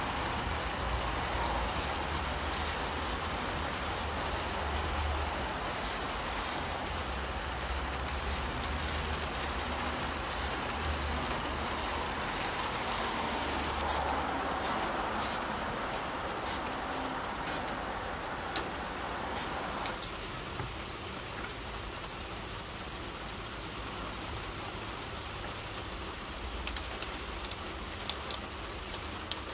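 Short spurts of spray paint hissing from an MTN 94 aerosol can, about twenty of them, over steady rain. The spurts stop about two-thirds of the way through, leaving only the rain and a few light clicks near the end.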